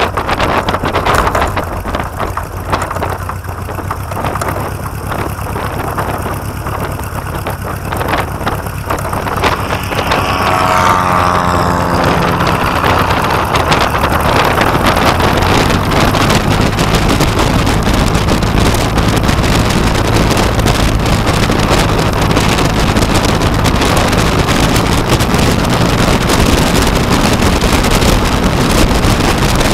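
Aeronca Chief light aircraft's engine and propeller running at taxi power, with wind buffeting the microphone. It gets louder about ten seconds in and then holds steady.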